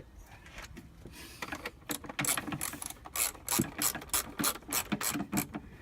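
Ratchet wrench clicking in short, irregular runs, starting about two seconds in.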